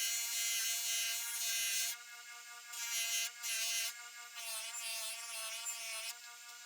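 Electric polishing wheel's motor running steadily, with the steel knife blade pressed against the spinning wheel in repeated rubbing passes that come and go, the motor's pitch sagging slightly under the load.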